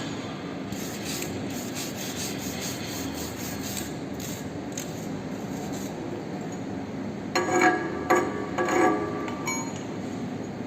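Fast scraping strokes on metal, about four a second, then several sharp metal clanks with a brief ring in the second half, over a steady background noise: hand cleaning of a freshly hardfaced weld on a rotor.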